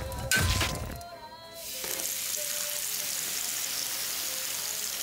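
A hard blow from a swung metal pot about half a second in, then a steady sizzling hiss as a liquid poured from a flask gives off billowing white vapour, over background music.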